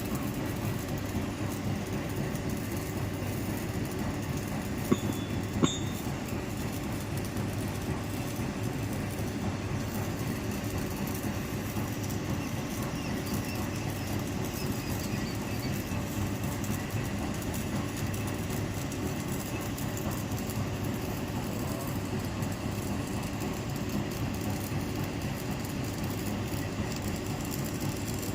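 Stick (shielded metal) arc welding with an E6013 rod on a galvanized iron pipe-to-flange joint: the arc gives a steady, even crackle as the bead is run. Two sharp clicks stand out about five and six seconds in.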